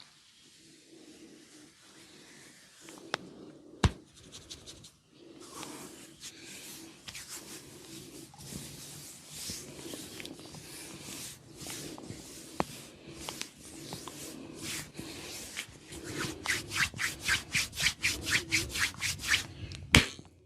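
Barber's hands rubbing briskly through the hair and over the scalp in a head massage. Strokes come faster near the end, about five a second. A few sharp clicks stand out, one loud one about four seconds in.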